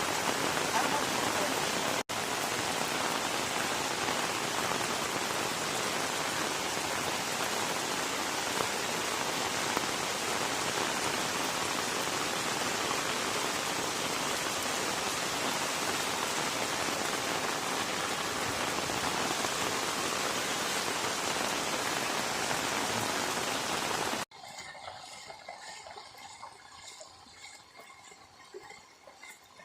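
Steady rain falling, an even hiss. It cuts off suddenly about 24 seconds in, leaving only faint, quieter sounds.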